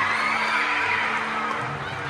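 A large crowd of teenagers cheering and screaming in a gymnasium, with music playing underneath; the cheering eases off slightly near the end.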